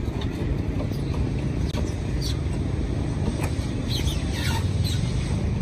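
A steady low engine rumble, with a few short faint chirps above it.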